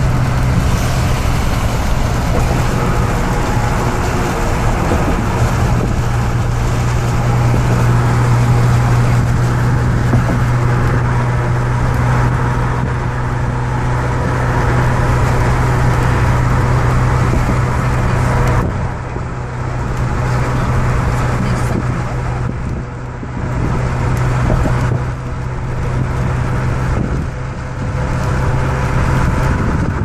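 Road noise inside a moving car: a steady low drone of tyres and engine under a broad rush of passing air and traffic. A little over halfway through, the high rush thins and the level starts to rise and fall.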